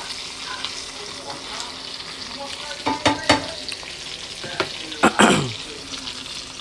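Burger patties sizzling steadily in hot oil in a nonstick frying pan. A spatula knocks and scrapes against the pan a few times: twice about three seconds in and more loudly about five seconds in.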